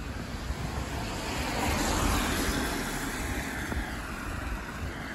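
Wind buffeting the microphone outdoors: a gusty low rumble under a broad hiss that swells slightly around the middle.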